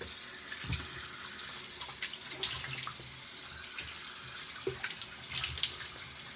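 Bathroom sink tap running steadily, with small splashes and ticks as water hits the basin and the hands working in it: a rinse after shaving.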